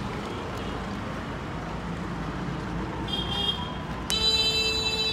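Street traffic noise, then a vehicle horn: a short high toot about three seconds in, and a loud steady honk that starts suddenly about four seconds in.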